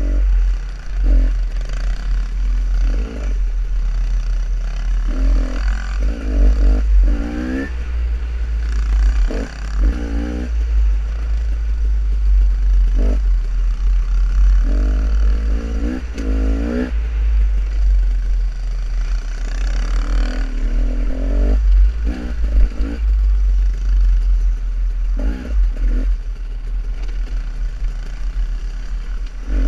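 Off-road dirt bike engine being ridden over rough singletrack, revving up and falling back again and again, every second or few, heard from a helmet-mounted camera with a heavy low wind rumble on the microphone.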